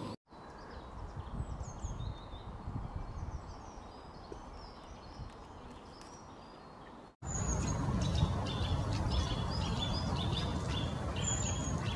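Outdoor ambience with small birds chirping and singing over a steady low rumble. About seven seconds in it cuts abruptly to a louder outdoor take with faster, repeated bird notes.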